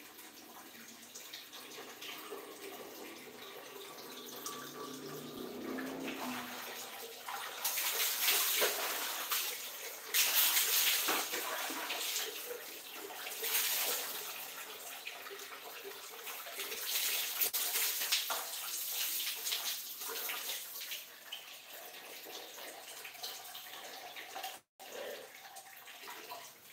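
Bucket bath in a tiled bathroom: a wall tap runs into a plastic bucket while water poured from a plastic dipper splashes onto the body and the tiled floor. The splashing comes in several louder surges from about a third of the way in.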